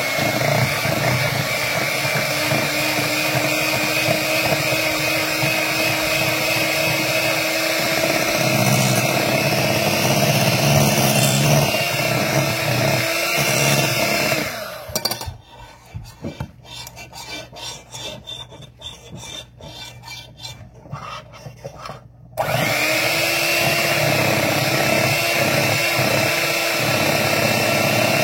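Electric hand mixer running steadily, beating pancake batter in a bowl with a constant motor whine. It switches off about halfway through, leaving a few seconds of small clicks and taps, then starts again about 22 seconds in.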